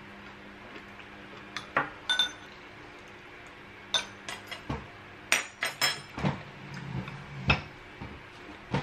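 Metal spoon and chopsticks clinking and tapping against small ceramic side-dish bowls during a meal: scattered light clinks, busiest a little past the middle.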